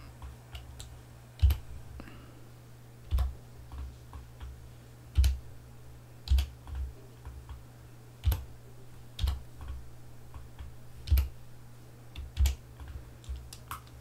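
Computer keyboard key presses and mouse clicks: sharp clicks every second or two over a faint steady low hum.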